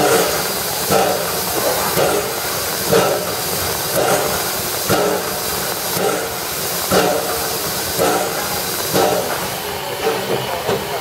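FS 685 steam locomotive standing with steam hissing steadily from around its cylinders and running gear, with a regular pulse about once a second.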